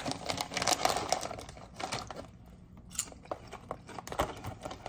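Crinkling of a plastic snack bag as it is picked up and handled, with dense rustling over the first couple of seconds, then scattered crackles.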